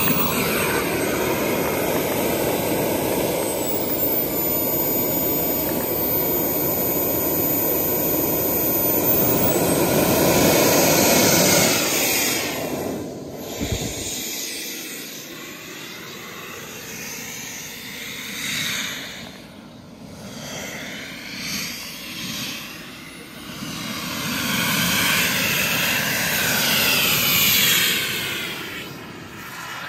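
Radio-controlled CARF Rookie model jet's turbine engine: a loud, steady rush with a high whine for about the first twelve seconds. After that the sound fades and swells, sweeping in pitch, as the jet passes by in flight, and it is loud again near the end.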